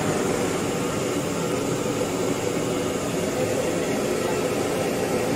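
Steady background noise: a continuous hiss and rumble, like a running fan or distant traffic, with no distinct events.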